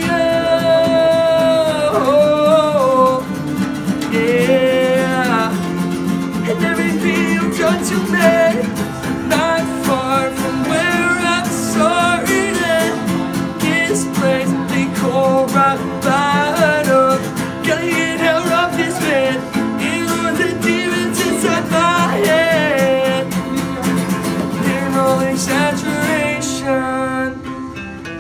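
Live acoustic band: several acoustic guitars strummed together under a male lead vocal singing a melody. Near the end the singing stops and the guitars carry on more quietly.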